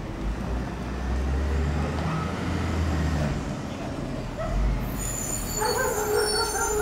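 Mack LE front-loader garbage truck's engine running as it drives slowly up the street, with a squeal of its air brakes coming in near the end as it slows to a stop.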